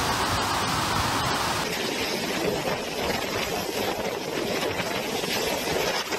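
Typhoon wind and heavy surf breaking against a seawall, a steady rushing noise. A little under two seconds in it cuts to storm wind gusting through a street, with less hiss.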